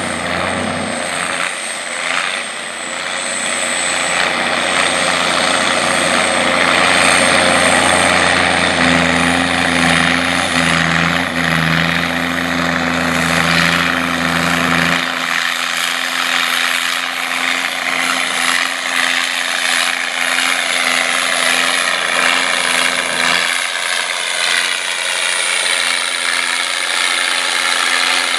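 Massey Ferguson 5200 four-wheel-drive tractor's diesel engine running steadily under load while it pulls a grain drill. Its pitch falls slowly over the last few seconds.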